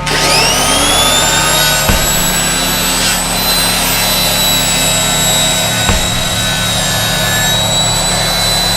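A high-speed electric power tool motor spins up over about a second, then runs with a steady high-pitched whine.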